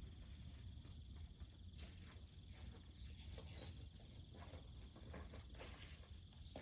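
Faint, irregular crackling of a wood fire, behind which runs a faint, steady, high chirring of insects.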